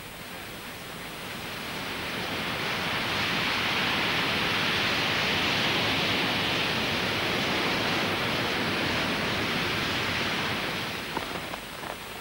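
Rushing, splashing water of a surfaced Polaris submarine's bow wave breaking over its hull. It swells over the first few seconds, holds steady, then eases off near the end, where wind buffeting takes over.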